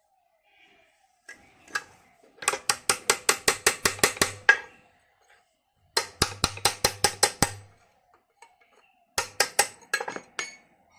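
Ratchet wrench clicking in three runs of rapid, even clicks, about six a second, as a bolt on the pump is turned during the seal replacement.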